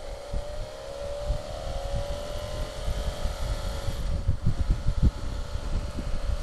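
BMW F650GS motorcycle engine running under way, its note rising gradually over the first two seconds or so and then holding steady, with gusty wind buffeting on the microphone.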